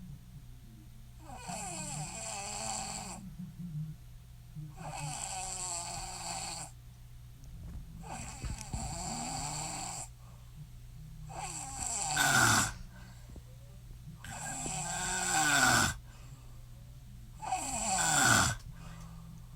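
A woman snoring in her sleep: six long snores, one about every three seconds, the later ones louder and each swelling toward its end.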